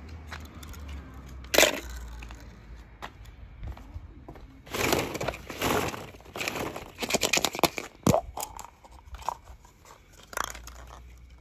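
Hollow plastic toy balls clattering and knocking together as a hand rummages through them, with sharp clicks of plastic toy eggs being handled, in irregular bursts.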